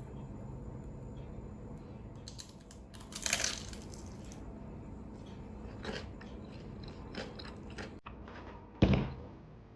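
Crunchy bites and chewing of crispy fried food, with a loud crackling crunch about three seconds in and smaller crunches after. A sharp thump near the end is the loudest sound.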